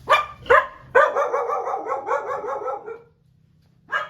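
An animal calling: two short, sharp calls, then a rapid run of repeated calls lasting about two seconds, and one more short call near the end.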